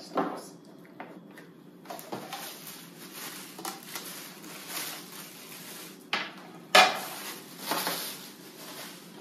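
Clear plastic bag crinkling as a plastic drip tray is pulled out of its wrapping. Two sharp hard knocks come about six and seven seconds in, as hard items are handled on the wooden table.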